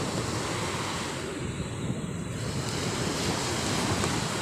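Sea waves washing, with wind buffeting the microphone, as a steady rushing noise.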